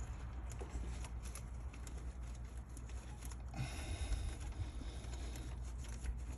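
Faint scattered clicks and scraping of hands forcing a hose and its reused clamp back into place in a car engine bay, over a steady low hum.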